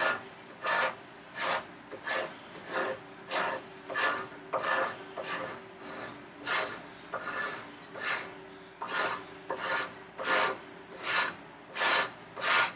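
Steel card scraper pushed in short, even strokes across the end grain of a figured maple board held in a vise, scraping off the waxy end sealant. The strokes come nearly two a second.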